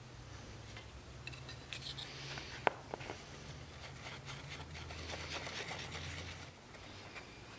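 Adhesive being squeezed from a tube and rubbed over a rubber pad that will face a wooden wagon brake block: soft rubbing and scraping with small clicks, and one sharp click about two and a half seconds in. A steady low hum runs underneath.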